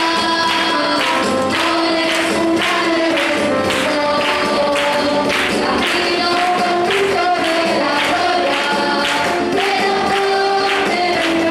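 Group of voices singing a Christian praise song, with a tambourine shaken and struck in a steady beat of about two strokes a second.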